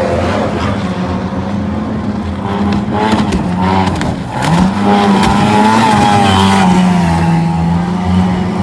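Racing boat engines running hard at a steady pitch, which climbs about halfway through and settles back a little near the end.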